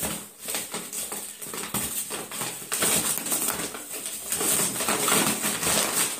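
Plastic bubble wrap around a big sack of dog food crinkling and rustling as a small dog bites, tugs and paws at it, in a run of irregular crackles.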